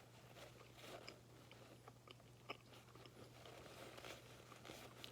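Faint chewing of a soft-baked oatmeal square, with a few small mouth clicks, over a low steady hum.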